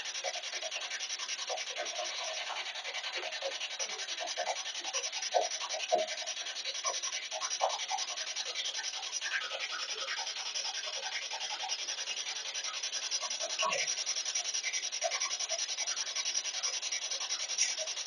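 Spirit box sweeping the AM radio band at a fast rate: steady radio static chopped into short snatches of sound as it jumps from station to station.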